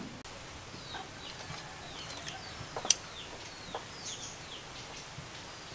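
Chickens calling in a run of short, high, falling chirps, with a few light clicks and one sharp click about three seconds in.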